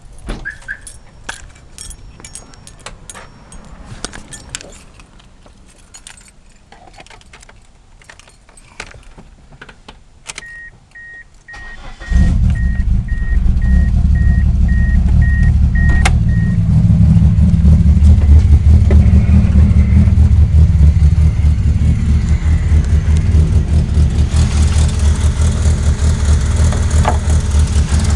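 Keys jingling and clicking, then a vehicle warning chime beeping at one steady pitch. About twelve seconds in, the engine starts and keeps running with a loud, steady low drone.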